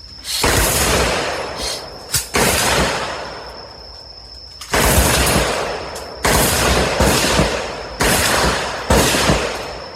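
Pistol shots at a shooting range: six loud shots at irregular intervals, each trailing off in a long echo, with a faint steady high tone behind them.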